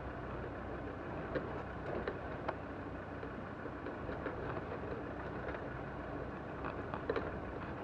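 An off-road 4x4 driving slowly down a rough track: steady engine and tyre noise with scattered short clicks and knocks, a few seconds apart.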